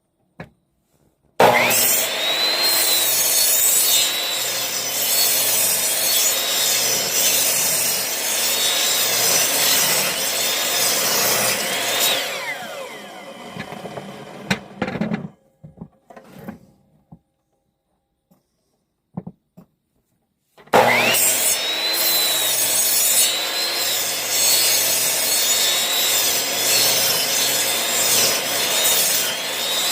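Electric power saw cutting wood, its motor whine dipping and recovering as the blade takes load. About twelve seconds in, the saw winds down with a falling whine. A few knocks follow in a pause before it runs and cuts again.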